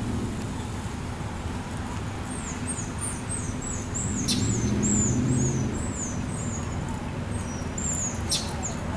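A small bird sings a quick series of high, downward-slurred chirps, two or three a second, through the middle of the stretch. Underneath is a steady low rumble like passing traffic, which swells about four seconds in, and there are a couple of sharp clicks.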